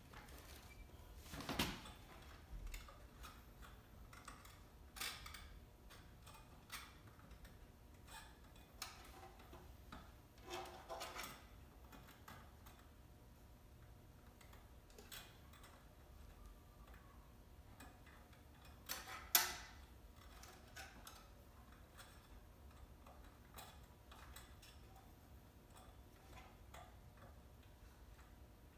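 Scattered light clicks and metallic knocks of hand tools and parts being worked on a small electric ATV during assembly, with a few louder clacks, the sharpest about nineteen seconds in.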